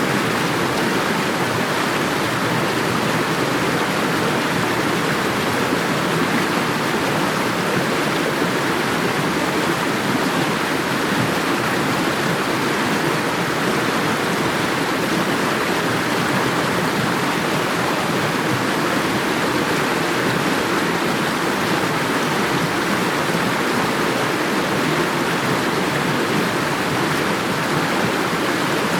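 Water rushing and splashing steadily.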